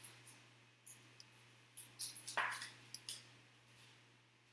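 Trading card handled and slid into a rigid plastic toploader: faint scattered plastic clicks and light scrapes, with one louder brief brushing sound about two and a half seconds in.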